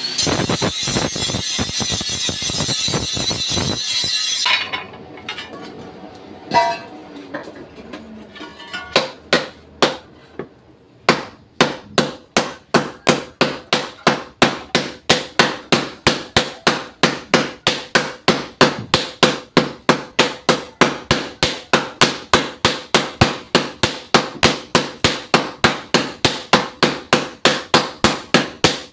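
A steel farm hoe being reworked at a blacksmith's: a hissing grinder on the metal for about the first four seconds, then quiet with a few scattered knocks, then from about eleven seconds a steady run of ringing hammer blows, two to three a second, hammering out the hoe's blade edge.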